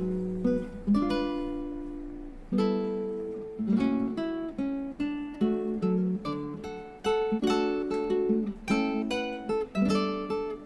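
Background music: acoustic guitar played with plucked and strummed chords, each one sounding sharply and then fading.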